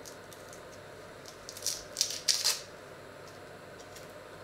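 Dry, papery onion skin crackling as it is peeled off with a small knife, in a few quick crinkly bursts about halfway through.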